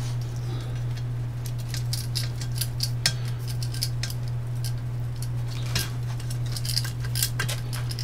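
Small screws, washers and a precision screwdriver clicking and clinking against a robot car chassis as screws with lock washers are driven in by hand, in scattered light clicks with a few sharper ones, over a steady low hum.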